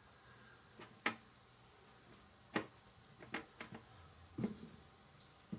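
A handful of faint, irregular taps and clicks as fingers pick chopped cilantro off a small wooden cutting board and drop it into a plastic measuring spoon. One tap, about four and a half seconds in, is duller than the rest.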